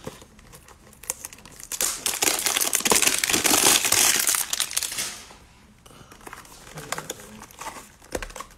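Clear plastic wrap being stripped off a trading-card hanger box and crumpled, a loud crinkling from about two seconds in until about five seconds in. It is followed by softer rustles and light clicks of cardboard as the box is handled and opened.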